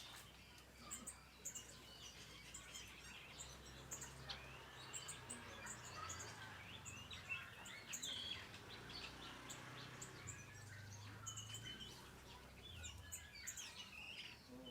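Small aviary birds chirping and twittering faintly, many short overlapping calls throughout, over a faint low hum.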